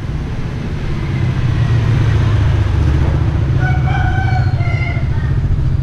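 A rooster crows once, its call starting about three and a half seconds in and lasting a little over a second, over a loud low rumble that swells through the first half.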